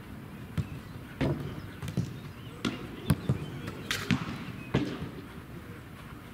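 Footballs being kicked and passed on artificial turf: a run of about eight sharp, irregularly spaced thuds that stops about five seconds in.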